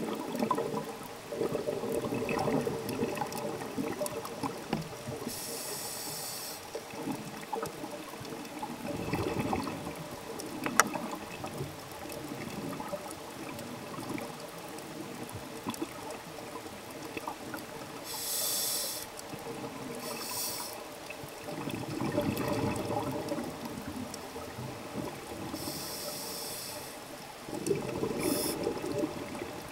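Scuba diver breathing through a regulator underwater: several rushing bursts of exhaled bubbles at irregular intervals, with short hissing inhalations between them.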